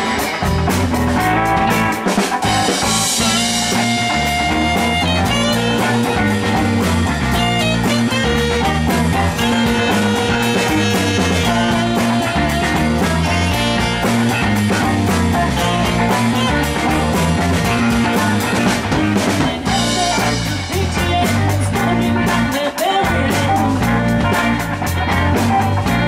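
Live rock band playing an instrumental passage, with a saxophone lead over electric guitars, bass guitar and drum kit.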